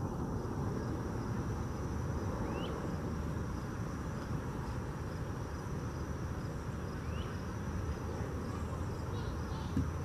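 Steady drone of insects, high-pitched, over a steady low background noise, with two short rising bird chirps, one about two and a half seconds in and one about seven seconds in.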